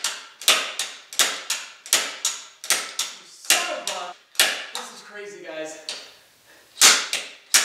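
Slide hammer striking again and again, about two sharp metallic knocks a second with a short pause past the middle. It is pulling a stuck diesel fuel injector out of the cylinder head of a Mercedes E320 CDI.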